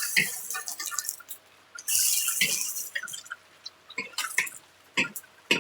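Kitchen work with water: two short splashing, hissing bursts of water, one at the start and one about two seconds in, among scattered clicks and knocks of utensils.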